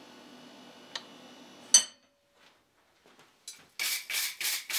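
Hand tools working a small steel strap held in a bench vise: a light tap, then a louder ringing metal strike, as a twist is straightened out. After a short silence come quick raspy scraping strokes on the metal, about four a second.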